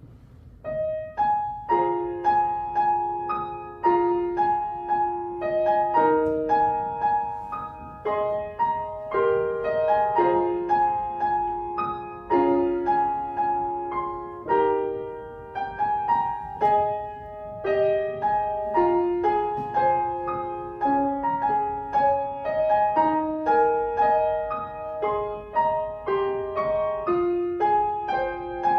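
Solo piano playing a piece, the first notes coming in about a second in and continuing as a steady flow of melody over repeated notes.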